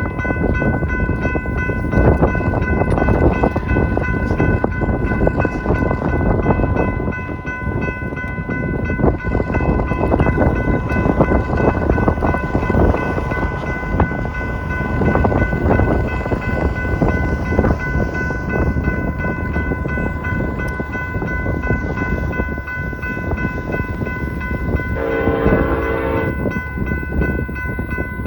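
Train rolling past with heavy wind rumble on the microphone and a steady high whine throughout. A short horn blast sounds about 25 seconds in.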